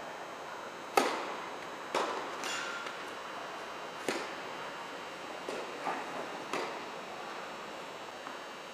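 Tennis rally: a racket serve strikes the ball about a second in, the loudest knock, followed by a handful of sharper, quieter racket hits and ball bounces. Each knock rings briefly in a large indoor hall.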